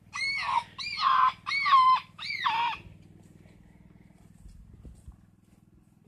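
A child imitating a bird call: four loud squawking calls in quick succession, each rising then falling in pitch, ending about three seconds in.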